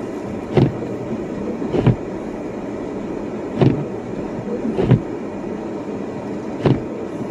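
Cabin noise inside a Toyota RAV4 driving slowly through fresh snow: a steady road and engine hum. Pairs of short thumps, about a second apart, repeat about every three seconds.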